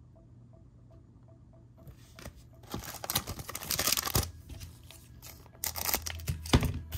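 A trading-card pack's wrapper being torn open, with a rasping rip lasting over a second about three seconds in, then a shorter crinkle of the wrapper about six seconds in.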